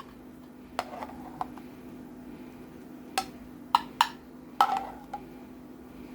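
A utensil clinking and knocking against dishes: about eight short, sharp clinks at irregular intervals, with a steady low hum underneath.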